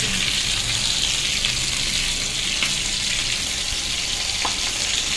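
Food frying in a pan, a steady sizzle, with two faint clicks in the second half.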